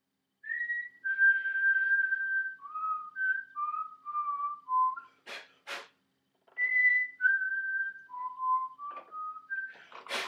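A person whistling a tune, a string of clear held notes, with two sharp knocks about halfway through and a clatter starting right at the end.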